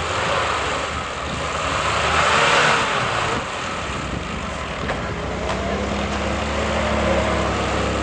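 Off-road 4x4 engine running, swelling to a loud rush about two and a half seconds in, then dropping back to a steady low run.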